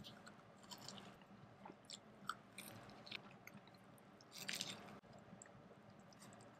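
Quiet chewing of a breaded, fried beef cutlet sandwich on toasted bread: faint scattered crunches and crackles, with a louder cluster about four and a half seconds in.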